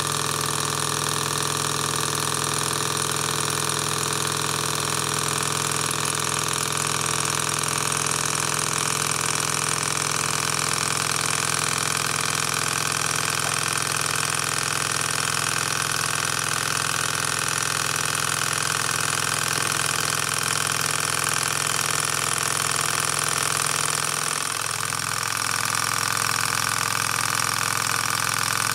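PM Research Peanut Rider Stirling engine running at a steady speed: a continuous mechanical running sound with steady tones. About 24 seconds in it briefly dips in loudness and its tone shifts.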